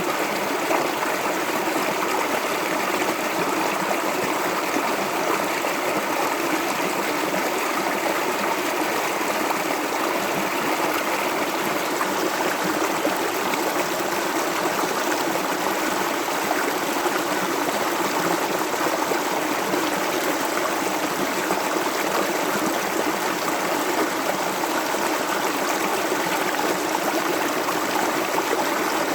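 Shallow stream of clear water running and babbling over stones, a steady bubbling flow with fine trickling detail.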